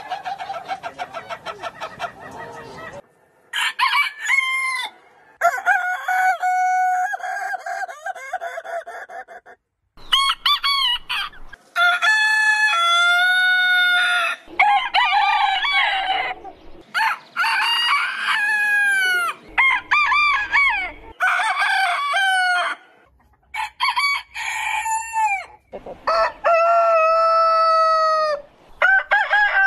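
Several different roosters crowing one after another, about ten crows in all, each a long pitched cock-a-doodle-doo that rises, holds and falls away. The crows are cut together with abrupt breaks between them.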